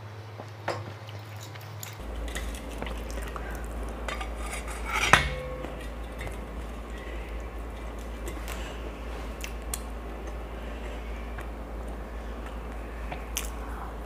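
Scattered light clinks and taps of stainless steel plates and bowls as pav is handled and dipped in bhaji, with one louder, sharper clink about five seconds in that rings briefly.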